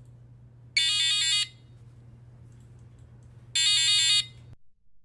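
The buzzer of a DM-45F2022 sound effect module playing one of its built-in alarm-style effects. It gives two short, loud bursts of a rapidly stepping electronic tone, about three seconds apart.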